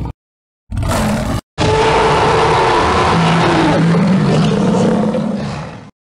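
Dinosaur roar sound effect, presented as a Spinosaurus: a brief growl about a second in, then one long roar of about four seconds with a wavering pitch that fades out near the end.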